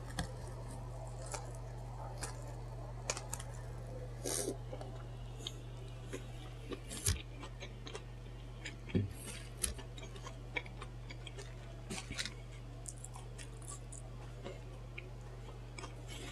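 Close-miked chewing of a sandwich: scattered wet mouth clicks and lip smacks over a steady low electrical hum.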